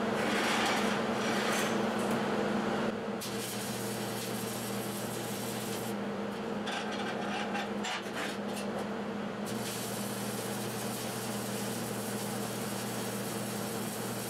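Stick (arc) welding with a 7018 electrode on steel plate: the steady crackle and hiss of the arc over the hum of the welding machine. Past the middle the arc stops for a few seconds, with a few clicks, then the crackle resumes.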